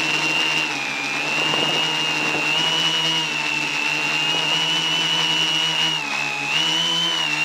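Quadcopter's electric motors and propellers whining steadily, heard from a camera mounted on the craft. The pitch dips briefly about a second in and again about six seconds in as the motors slow, then picks back up.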